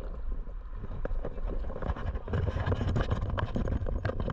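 Low buffeting rumble with many irregular knocks and thumps from a camera worn by a dog as it moves around.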